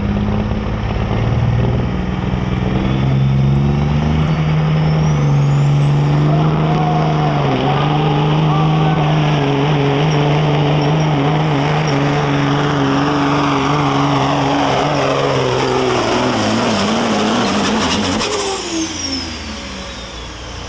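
Diesel semi truck engine running flat out under load, pulling a weight-transfer sled. A turbocharger whistle climbs over several seconds to a high, steady scream while the engine's pitch sags as the load builds, then the whistle falls away and the engine note drops near the end.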